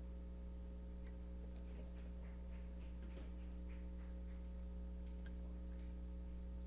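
Steady low electrical hum from the amplified sound system, with scattered faint clicks and taps through the middle.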